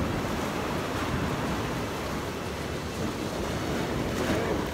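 Sea surf washing against shoreline rocks, a steady rush of waves with wind on the microphone.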